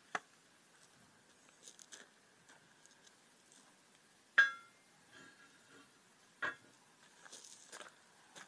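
Handling noises of glass baking pans and the solar oven: light clicks and knocks, with a sharp ringing glass clink about four and a half seconds in and another knock two seconds later.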